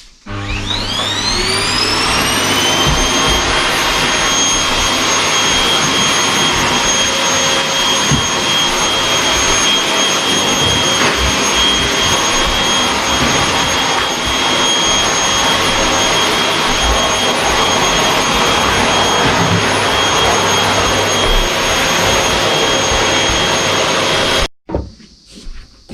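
Vacuum cleaner switched on: its motor whine rises in pitch over a few seconds as it spins up, then it runs steadily with loud suction noise. It cuts off suddenly near the end, followed by a few brief knocks.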